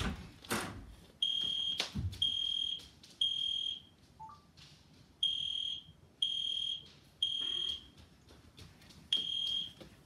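Toy fire alarm pull station sounding after its handle has been pulled down: high beeps in sets of three, each about half a second long, with a pause between sets, the three-beep evacuation pattern. A sharp thump near the start and a dull one about two seconds in.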